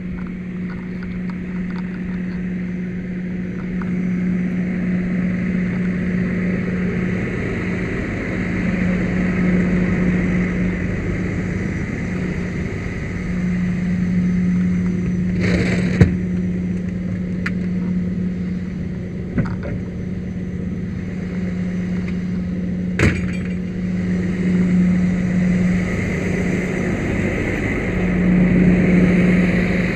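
An engine running steadily with a constant low hum, broken by a few short sharp knocks in the middle.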